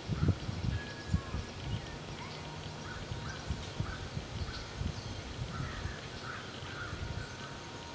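Birds calling in short repeated notes, with irregular low rumbling bumps underneath.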